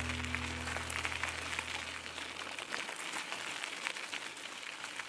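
The last chord of an acoustic guitar song rings out and fades over about two seconds, leaving a faint hiss with scattered small crackles.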